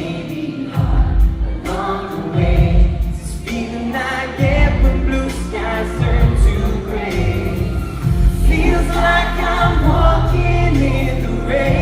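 Live pop band performance: a male vocal group singing in harmony over bass, keyboards and drums, with a steady hi-hat beat.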